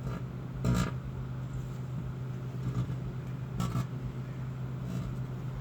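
Microwave oven running with a steady low hum, its cavity holding exposed metal. Two brief bursts of noise break in, about a second in and near four seconds.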